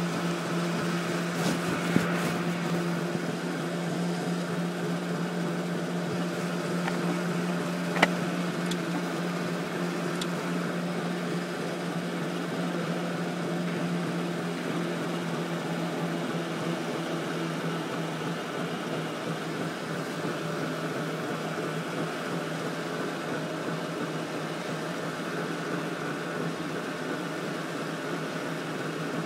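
Electric go-kart running on an indoor track: a steady electric hum with a low fixed tone, and sharp knocks about 2 and 8 seconds in.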